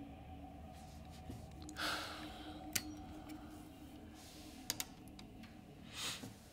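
Quiet room tone with a faint steady hum, broken by a man's heavy exhale about two seconds in and another near the end, with a few small clicks of handled gear in between as he takes off his headlamp and glasses.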